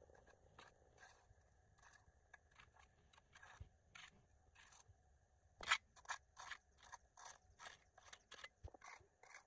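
Long-handled hoe scraping mud and debris along a concrete road edge in short strokes, faint. The strokes are sparse at first and come about twice a second from about halfway through.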